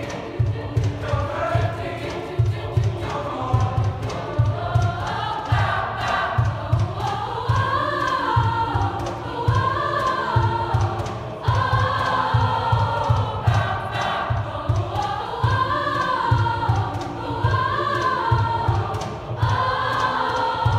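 Large mixed youth choir singing in unison phrases that rise and fall, over a steady beat of low thumps.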